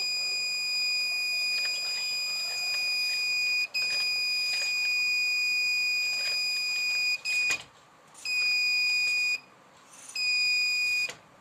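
Arduino-driven buzzer sounding a steady high-pitched alarm tone: the intruder alarm going off. The tone runs with one brief break, then switches on and off in stretches of about a second in the second half.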